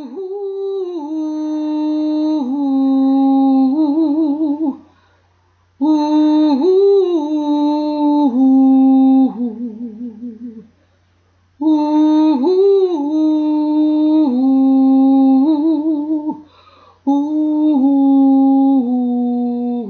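A solo voice humming a slow, wordless melody in four long phrases with short pauses between them. Notes are held steady, and several phrases end in a quick wavering trill.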